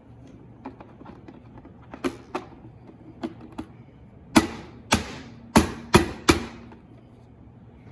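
Sharp plastic clicks and snaps from the air fryer's housing, a few light ones and then five loud snaps in quick succession, as the panel is pressed back into its clips after the thermal switch reset.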